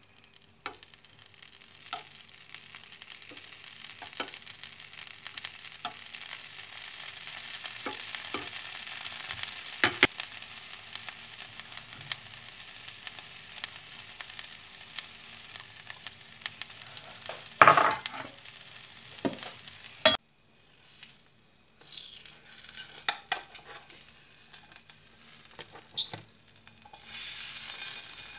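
Pizza crust and tomato sauce sizzling steadily in a hot frying pan, with scattered clicks and scrapes from a spoon and toppings being set down, and one loud knock about 18 seconds in. The sizzling cuts off suddenly about 20 seconds in, after which there are only scattered knocks and a brief hiss near the end.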